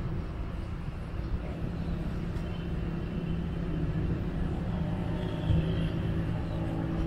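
A steady low engine rumble with a constant hum, no breaks or sudden changes.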